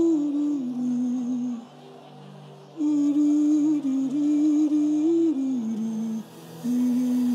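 A man humming long held notes through a microphone, each phrase stepping down in pitch, with short breaths between phrases. A soft sustained keyboard pad plays underneath.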